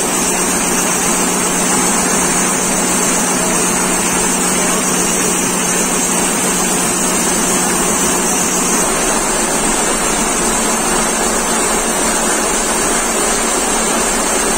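Multi-needle computerised quilting machine running: a loud, steady mechanical noise from the long needle bar stitching, with no pauses.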